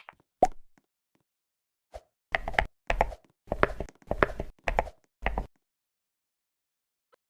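A run of about seven knocks and clattering thuds, roughly two a second, each with a low thump, ending abruptly.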